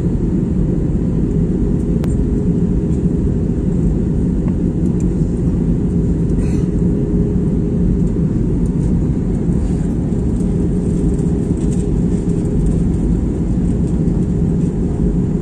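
Steady cabin noise of an Airbus A320 airliner in flight, heard from inside the cabin: a deep, even rush of engine and airflow with a low steady hum.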